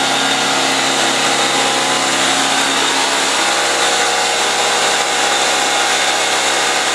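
Unrestored Leslie RS-3L three-chime locomotive air horn blowing one long, continuous, loud chord on about 80 psi of compressed air, with a strong hiss of rushing air under the steady tones.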